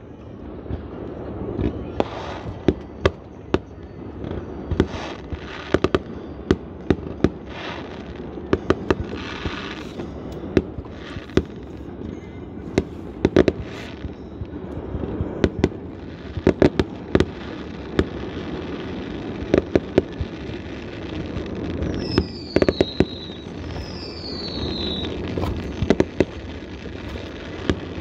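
Aerial fireworks bursting in a rapid, irregular string of sharp bangs, some in quick clusters. Near the end come two short whistles that fall in pitch.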